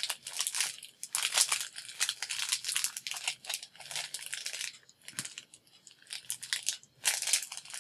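Plastic packaging crinkling and crunching as hands handle it, in irregular rustles that go faint for a couple of seconds after about five seconds in and pick up again near the end.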